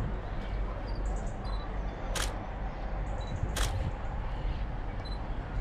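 Two sharp clicks about a second and a half apart, over a steady low rumble.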